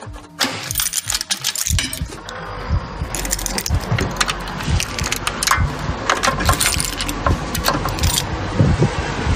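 Metal latch and handle of a stainless-steel walk-in cooler door clicking and clattering as the door is pulled open. From about two seconds in, a steady low rumble with many knocks and rattles.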